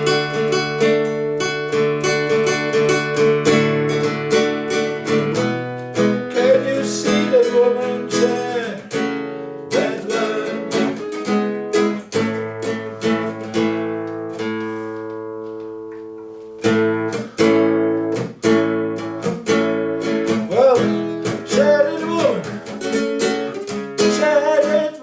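Acoustic guitar music, strummed chords in a steady rhythm, with one chord left ringing and fading about two thirds of the way through before the strumming picks up again.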